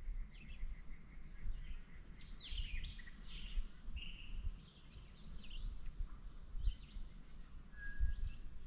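Songbirds chirping in short high calls, several quick runs of them a few seconds in and again later, over a low, uneven rumble.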